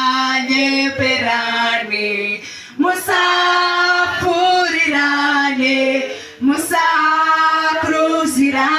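Women singing a worship song, one voice leading through a microphone, in held, gliding phrases of a few seconds each with short breaths between.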